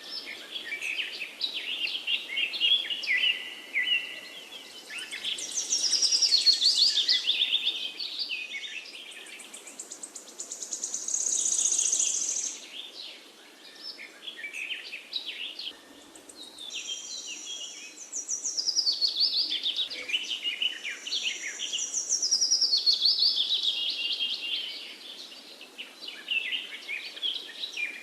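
Several songbirds singing and chirping, with fast trills and repeated high chirps overlapping in phrases that swell and fade every few seconds, over a faint steady background hiss.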